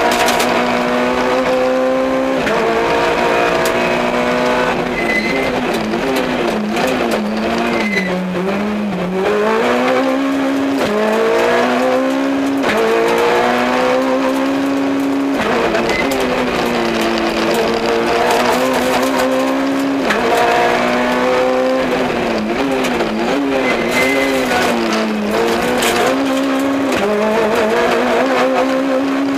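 Peugeot 106 XSI rally car's engine heard from inside the cabin, revving hard and rising and falling in pitch under acceleration and braking. The note breaks sharply at gear changes about every few seconds.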